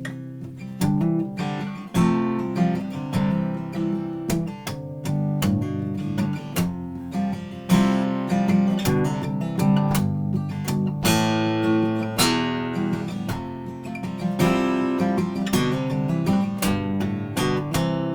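Blueridge BR-160A dreadnought acoustic guitar being strummed: a steady run of chords, several strokes a second, each ringing on into the next.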